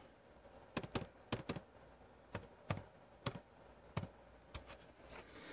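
Keys on an HP Chromebook 14's laptop keyboard being typed: about ten faint, separate key presses, spaced unevenly, as a sign-in passcode is entered.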